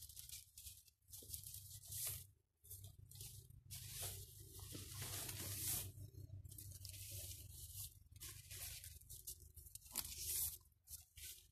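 Siberian iris leaves rustling in the hands as they are gathered and twisted into a braid, in irregular scratchy bursts over a low steady rumble.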